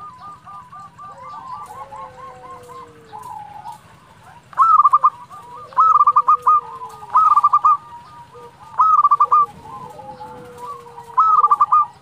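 Zebra dove (perkutut) singing: five loud, rapid rolling coo phrases from about four seconds in, repeated roughly every second and a half, over fainter cooing. A bird in full song (gacor), the kind of call used to provoke other perkutut into answering.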